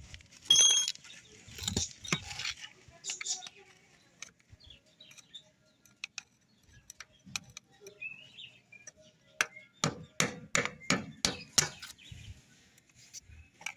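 Metal tools clanking and knocking during a front wheel bearing job: one sharp clank with a brief metallic ring near the start, then a quick run of about nine hammer blows on metal, three or four a second, near the end.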